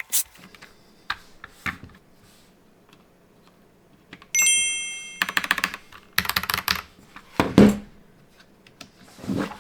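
Keys clacking on a mechanical keyboard in irregular bursts of presses, with a short bright chime about four seconds in.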